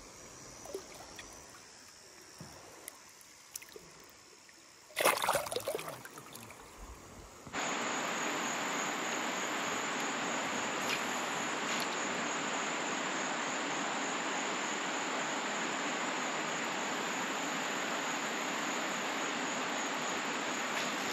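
River water running over a rocky shoal, a steady rush. It starts abruptly about a third of the way in, after a quiet stretch broken by a short loud burst of noise.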